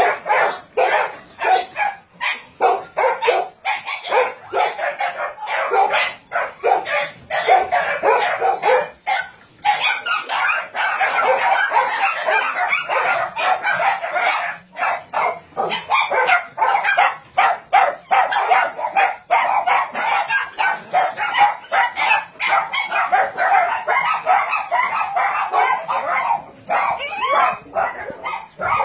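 Many dogs barking and yipping at once, a continuous din of overlapping barks that grows denser from about ten seconds in.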